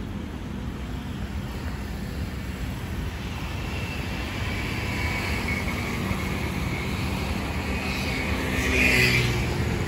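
Road traffic running steadily alongside, a mix of engine and tyre noise, growing louder in the second half as a vehicle passes close about nine seconds in.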